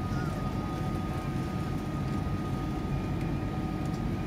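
Steady cabin noise inside an Airbus A380 as it lines up on the runway before takeoff: an even low rumble with a constant thin whine above it.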